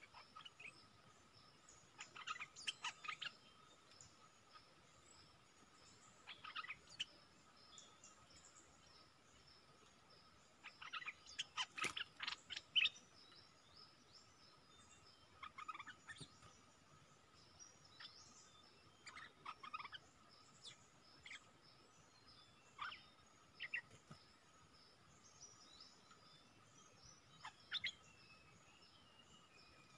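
Bulbuls calling: short clusters of quick, sharp call notes every few seconds, the busiest and loudest about twelve seconds in, over a faint steady high-pitched tone.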